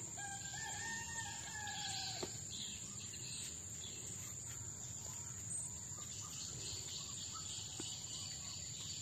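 A rooster crows once, a long drawn-out call of about two seconds, over a steady high buzz of insects.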